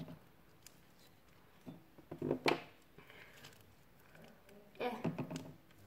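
Sticky PVA-glue slime, activated with spray starch, squelching and pulling away from fingers as hands stretch and knead it. It comes in two short bursts, about two seconds and five seconds in.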